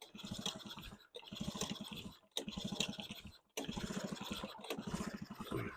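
Two-stroke outboard's recoil starter cord pulled four times in a row with the spark plug out, the engine spinning freely with no compression and a rapid ticking on each pull. This is done to clear excess fuel out of a flooded cylinder.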